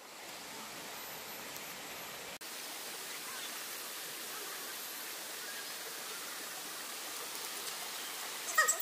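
Steady rush of water from a waterfall, a constant hiss with a momentary dropout about two seconds in.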